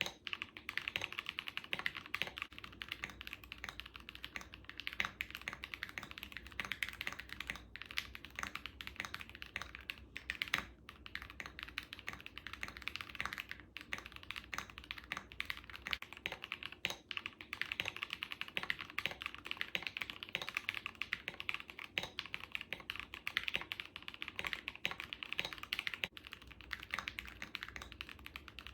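Fast, continuous typing on a KBD67 Lite R3 mechanical keyboard with a polycarbonate plate, lubed Everglide Tourmaline linear switches and XDA-profile keycaps: a dense, unbroken stream of key clacks.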